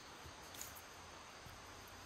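Faint forest ambience with a steady hiss of insects such as crickets. There are a few soft footsteps on the leaf-littered ground and one brief high click a little over half a second in.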